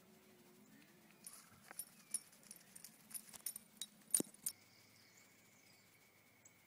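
A quick run of light clicks and taps lasting about three seconds, the sharpest one a little after four seconds in, followed by a faint steady high tone.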